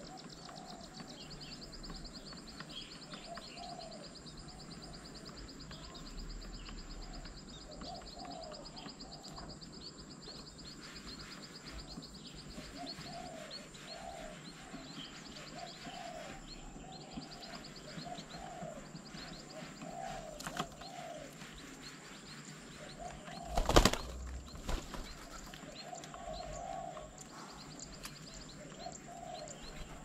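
Doves cooing over and over in short phrases, with a thin steady high tone behind. Late on, a sudden loud burst of flapping wings, spotted doves taking off from or landing on the bird table.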